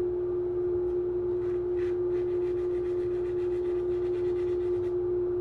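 Wood lathe running with a steady humming tone. From about two seconds in, a run of light, evenly spaced ticks sounds over the hum.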